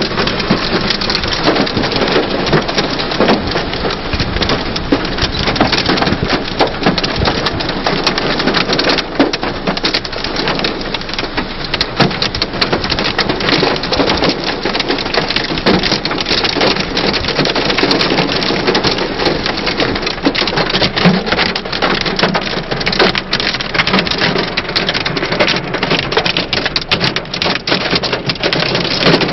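Hail and rain hitting a car's roof and windows, heard from inside the car: a loud, dense, unbroken patter of countless small impacts.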